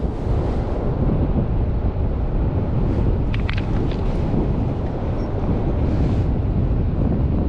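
Strong wind buffeting the microphone, a steady low rumble, with a few faint clicks of stones being handled about three to four seconds in.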